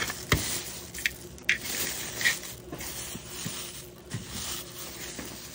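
Unboxing noises: packaging and parts being handled, rustling and scraping, with a few sharp clicks and taps.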